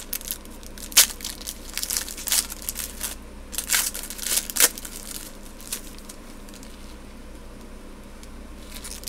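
Shiny foil wrapper of a Score football card pack being torn open and crinkled, with sharp crackles through the first half, the loudest about a second in and near the middle, then quieter handling.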